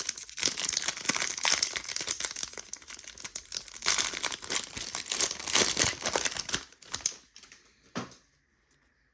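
Crinkly plastic wrapper of a trading-card pack being torn open and crumpled in the hands, crackling continuously for about seven seconds, then stopping, with a single short click about a second later.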